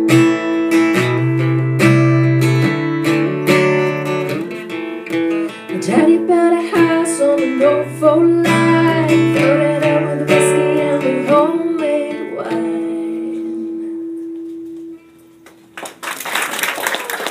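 Live acoustic guitar strumming with a woman singing the final lines of a folk-pop song; the last chord is held and fades away, and near the end the audience starts clapping.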